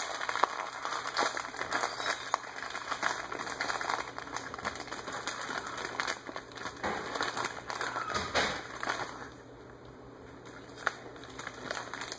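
Plastic snack packaging crinkling as it is opened and handled, a dense irregular crackle that eases off about nine seconds in.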